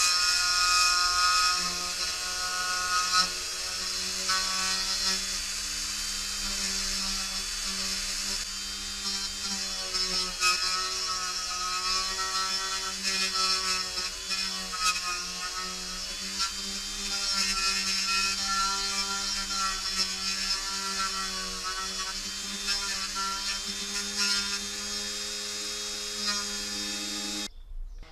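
Mini rotary tool running at a steady speed with a motor whine, its bit grinding down cured epoxy on the plastic contact surface for the load cell of a floor scale; the rasp of the grinding swells and fades as the part is pressed to the bit. It cuts off suddenly near the end.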